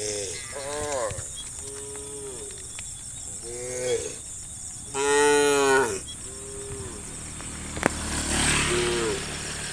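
Cows mooing: a string of short moos at differing pitches, with one long, loud moo about five seconds in. A single sharp click comes just before the last moo.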